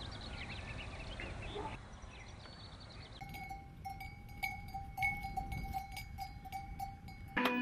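A cowbell on a grazing cow's neck clanking repeatedly and irregularly as the cow moves its head, with a steady metallic ring, starting about three seconds in. Before it, birds chirp over an outdoor background hum.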